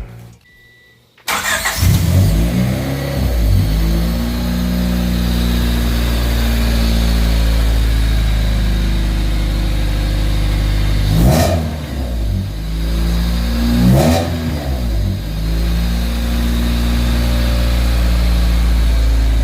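1995 Honda Civic's four-cylinder engine started about a second in, then idling, blipped twice near the end, breathing through a newly fitted cold air intake that makes it louder.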